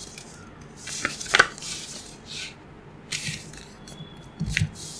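A sheet of paper being folded and its crease pressed flat by hand on a table: short crisp rustles and crinkles of the paper, a few seconds apart, with a couple of soft thuds of hands on the table near the end.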